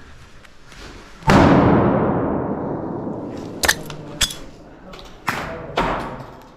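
A single loud bang about a second in, ringing out and fading over about two seconds in a large echoing indoor space, followed by four shorter sharp cracks, two close together then two more, typical of an airsoft game in progress.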